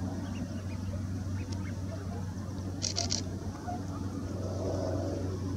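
Outdoor ambience: a steady low hum, with a few faint short bird calls and a brief scratchy burst about three seconds in.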